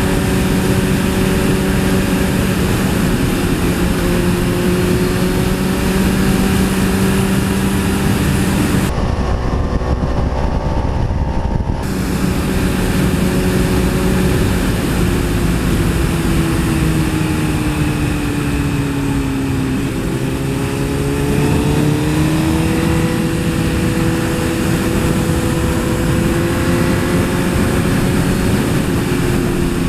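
Sport motorcycle engine running at road speed, with heavy wind noise on the on-bike microphone. Past the middle the engine note sinks for several seconds, then climbs again as the revs come back up.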